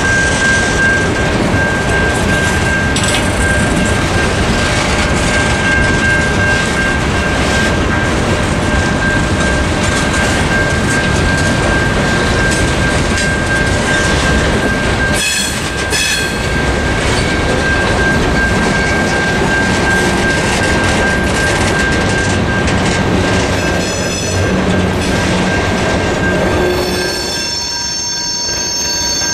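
Norfolk Southern mixed freight train's cars rolling past at a grade crossing: a steady loud rumble and clatter of steel wheels on rail. A high, steady squeal runs through most of it, with sharper wheel squeals in several pitches about halfway through and again near the end.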